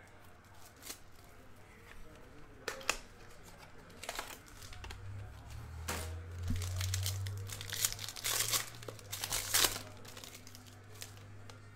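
A sealed cardboard box of trading cards is opened with a few sharp clicks. Then a silver foil card pack crinkles and tears as it is ripped open, in dense crackly bursts that are loudest in the second half.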